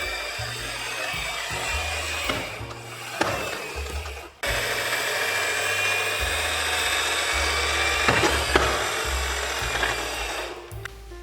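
Die-cast Tomica minicars rolling down a slope, a steady whirring rattle of small wheels. It breaks off for a moment about four seconds in, picks up again and fades near the end, with a few sharp knocks along the way. Background music with a bass line plays underneath.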